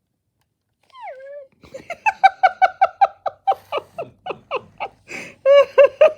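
Aibo ERS-1000 robot dog's electronic puppy voice: a falling whine, then a quick run of short yips about four a second, and a few longer yelps near the end.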